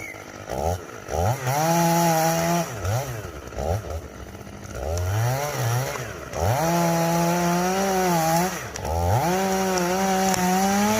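Two-stroke chainsaw cutting into a cypress tree, revved to full throttle and dropped back again and again: short blips early on, then three long held runs of about one to two seconds each.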